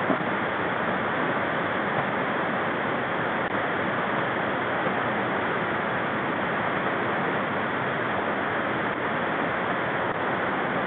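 Steady, unbroken rushing noise, even in level throughout.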